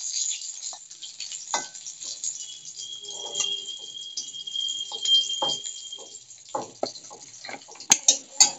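Metal spatula scraping and clinking against a kadhai as fried rohu fish steaks are lifted out of hot oil, over a light oil sizzle that fades. A faint steady high tone sounds in the middle, and two sharp clinks near the end are the loudest sounds.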